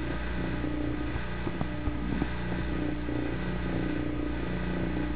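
Vacuum pump running with a steady low hum and a few faint clicks, pulling vacuum on the epoxy so it outgasses and bubbles.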